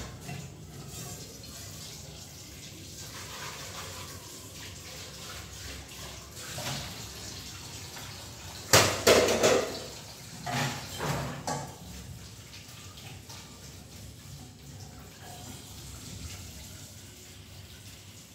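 Washing dishes by hand at a kitchen sink: a steady rush of running water, with a few seconds of loud clattering of dishes and pans in the sink about halfway through.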